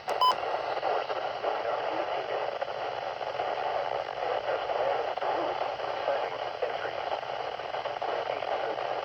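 A short electronic beep right at the start, then steady radio receiver static: an even hiss concentrated in the mid range and cut off above about 6 kHz.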